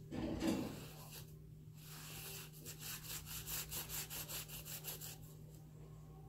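Paintbrush scrubbing on paper: a louder rub about half a second in, then quick back-and-forth strokes for a few seconds.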